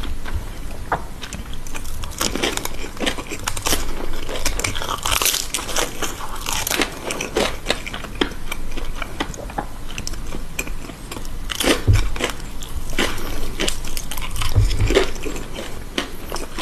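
Close-miked eating: a person biting into and chewing crunchy food, with a dense run of crisp crunches and crackles and a couple of heavier bites.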